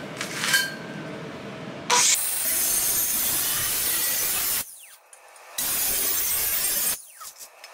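Angle grinder with a cutting disc slicing through a steel exhaust tube along a marked line. It starts about two seconds in, cuts for a couple of seconds, then stops and winds down with a falling whine. It starts again a second later for a shorter cut and winds down again near the end. A few metal clinks from handling come first.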